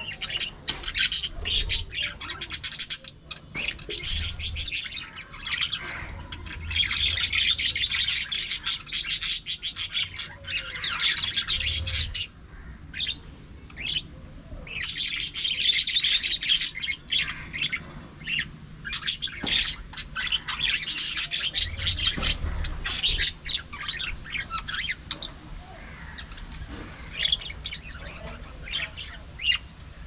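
A flock of budgerigars chattering and chirping, with fast warbling that comes in dense bursts and dies down briefly in between.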